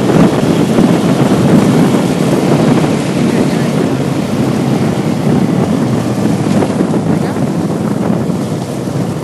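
ATV engine running steadily while riding, under heavy wind buffeting on the microphone.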